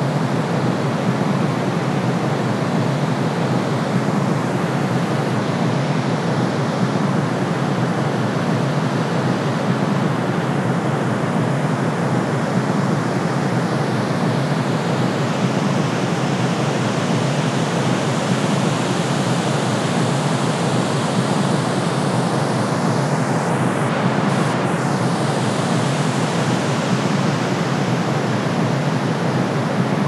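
Steady white-noise track: an even, unchanging hiss with most of its weight in the low and middle range.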